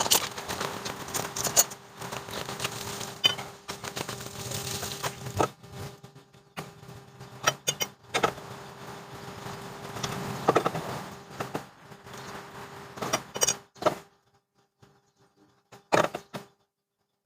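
Hand tools and metal parts clinking, knocking and scraping in irregular bursts during work on the truck's front wheel and suspension, dying away about 14 s in with a few last clicks.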